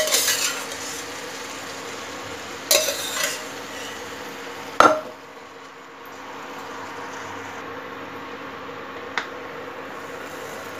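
A metal ladle scoops boiled vegetables into a pan of frying masala, clattering against the pan and bowl: a clatter at the start, another about three seconds in, and a sharp knock about five seconds in, with a light click near the end. Under it the masala sizzles gently with a steady low hum.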